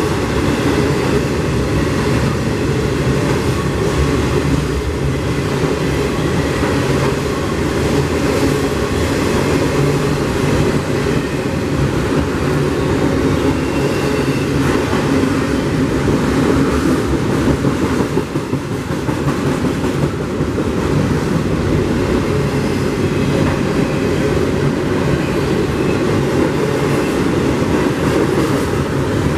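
Double-stack intermodal container cars of a freight train rolling past: loud, steady noise of steel wheels on rail, with light clicking and clatter from the wheels and cars.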